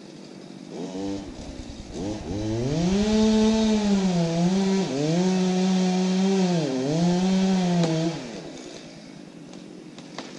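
Chainsaw engine revving up about two seconds in, after a short blip, and held at high revs while cutting a large maple trunk. Its pitch dips twice under load before it drops back down just after eight seconds. This is the felling cut: the tree begins to lean moments later.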